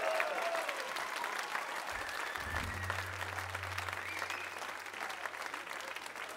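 Concert audience applauding as a blues-rock song ends, the band's last notes dying away at the very start. A low steady hum joins about two and a half seconds in.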